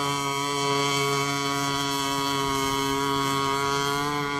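Radio-controlled racing boat's motor running flat out at speed, a steady drone holding one pitch.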